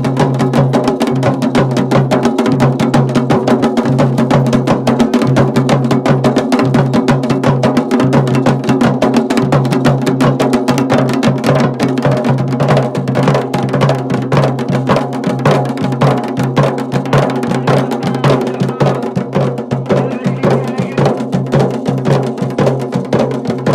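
Traditional Garhwali dhol-damau drumming for Pandav Nritya: fast, dense drum strokes over a steady low drone.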